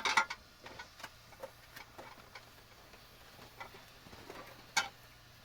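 Irregular light clicks and knocks, with a louder cluster of knocks at the very start and one sharp knock near the end.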